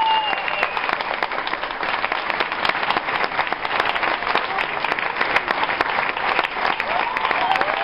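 Theatre audience applauding: dense, steady clapping from many hands, with a voice or two calling out at the very start and again near the end.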